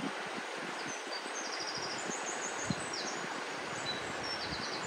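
A rocky stream running, a steady rushing noise, with small birds singing short high chirps and quick trills over it, one trill about a second and a half in and another near the end.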